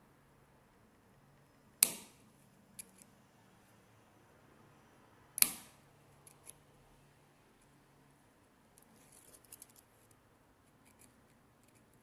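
Sharp metallic clicks of a lock pick and tension wrench working in a car door lock cylinder: two loud clicks a few seconds apart, each followed by a couple of fainter ones, then a patter of faint scratchy ticks near the end.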